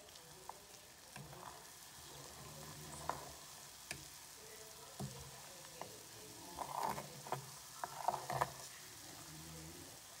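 Faint sizzling and bubbling of a saucepan of oil frying onion, garlic and herbs on low heat, the ingredients slowly cooking down in the oil. A metal spoon clinks against the steel pan now and then, more often in the second half.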